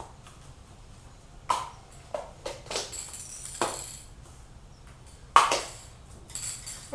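Aerosol spray paint can handled and shaken, its mixing ball giving irregular sharp clacks, with short hissing spray bursts between them.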